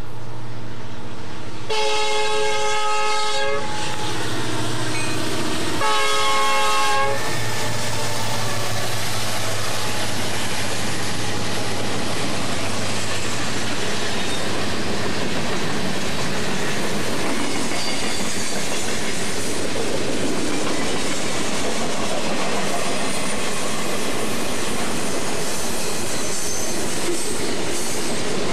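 Union Pacific freight train passing close by. The diesel locomotive's air horn sounds two chords, a long one and then a shorter one, over the engines' drone. Then a long string of freight cars rolls past with a steady rumble and clickety-clack of wheels over the rail joints.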